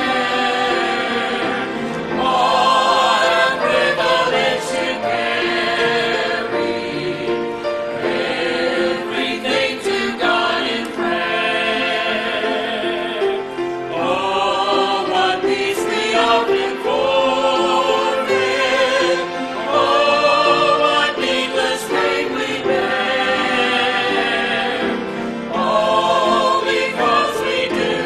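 Mixed church choir of men's and women's voices singing a hymn together, in sustained phrases.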